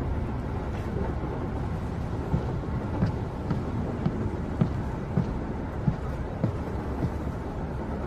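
Steady rumble inside a passenger train carriage, with footsteps coming down the aisle, evenly paced at somewhat under two steps a second from about two seconds in.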